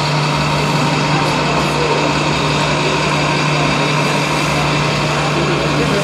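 RC tipper truck running steadily while its tipper body raises: a continuous engine-like hum from its sound module and small hydraulic pump.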